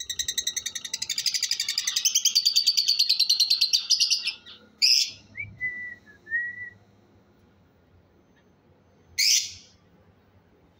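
Fischer's lovebird chattering rapidly, about ten high notes a second, for roughly four seconds. Then it gives a sharp call, a few short whistled notes and one last loud shriek about nine seconds in.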